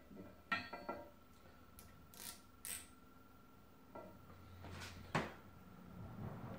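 Faint, scattered metallic clicks and clinks from a micrometer being set on a Honda CBX1000 crankshaft's main bearing journal and the crank being turned by hand, the sharpest click about five seconds in.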